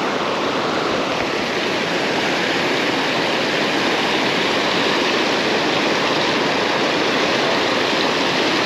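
Steady rush of flowing water close to the microphone, growing slightly louder over the first second or two, then holding even.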